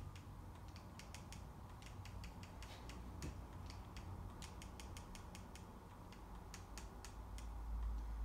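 Fast, irregular clicking of a handheld controller's buttons and D-pad, several clicks a second with short pauses, as a cursor is stepped across an on-screen keyboard to spell out a search.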